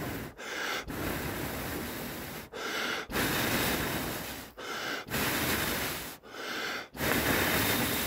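A person blowing hard into a hand-held tinder bundle of lichen and wood shavings to bring a charcloth ember up to flame: four long blows, each followed by a quick gasping breath in, the blows rushing close on the microphone.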